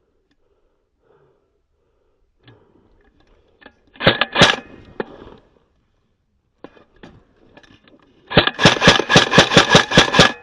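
Airsoft gun firing: a short burst of a few sharp shots about four seconds in, then a rapid, evenly spaced string of shots at about six a second starting about eight seconds in.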